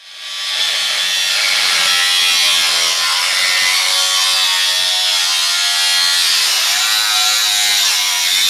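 A power tool cutting into metal, running steadily with a hissing, wavering whine that shifts slightly in pitch under load.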